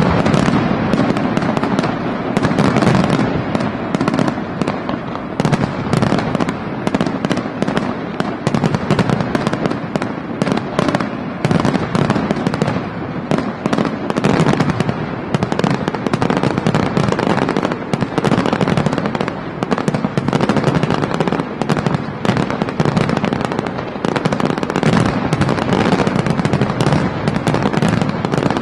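Aerial fireworks barrage: shell bursts going off in rapid, overlapping succession, a dense continuous run of bangs and crackle with no pause.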